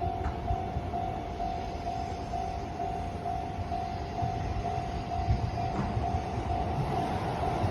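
Japanese railroad crossing's electronic warning bell ringing in an even ding-ding rhythm, about two strikes a second, over the low rumble of an approaching train that grows louder near the end.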